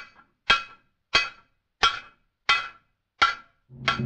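Hammer striking an anvil at a steady pace: about seven ringing metallic clangs, roughly one every two-thirds of a second. Just before the end a low droning hum comes in underneath.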